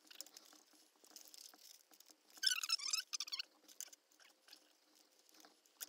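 Small clear plastic hardware bag crinkling as it is handled, louder in a short burst about two and a half seconds in, with light clicks of small screws and nuts on a desk.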